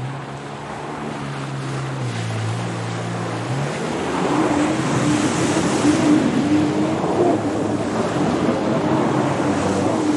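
Rushing water noise with a motor humming through it. The hum steps lower about two seconds in, then from about four seconds a higher, wavering engine tone comes in and the whole sound grows louder.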